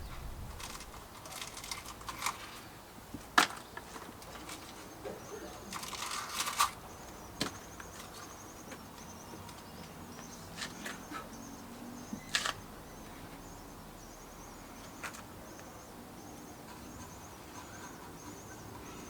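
Scattered light clicks and taps from handling a 3D-printed model car and its flocking tools while the interior is flocked, with a short hiss about six seconds in.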